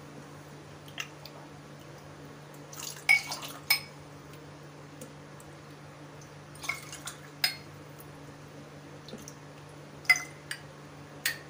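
Ladle knocking and clinking against a steel pot and a drinking glass, with small splashes of liquid as kanji is ladled into glasses. The clinks come in three short clusters a few seconds apart, over a low steady hum.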